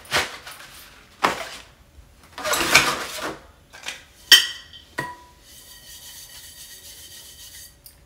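Cardboard and packaging rustling as Caraway cookware is unpacked by hand. About four seconds in comes a sharp clink with a brief ring, and a lighter knock with a short ring a second later, as a piece of the cookware knocks against something while it is lifted out and set down.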